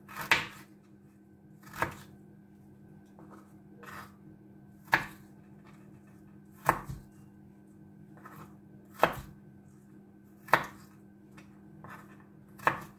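Knife chopping fresh ginger into bite-sized pieces, slow single cuts each landing as a sharp knock, about one every one and a half to two seconds.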